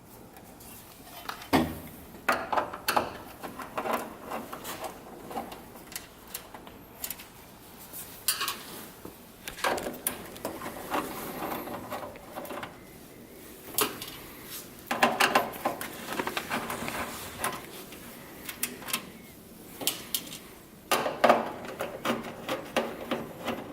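Metal clicking and clattering in several bursts as screws are taken out of a range's sheet-metal control panel.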